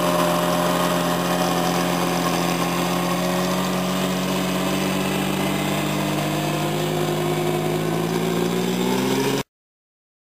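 Unimog truck engine running steadily as the truck rolls along on sand, its pitch rising slightly towards the end. The sound cuts off suddenly near the end.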